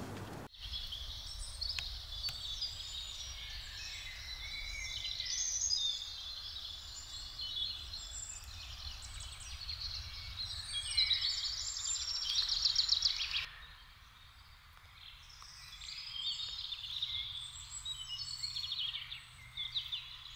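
Several songbirds singing at once, with chirps and a fast trill, over a steady low outdoor rumble.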